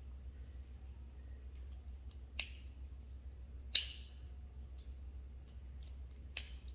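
Three sharp clicks, the loudest about midway, with a few fainter ticks between them over a steady low hum.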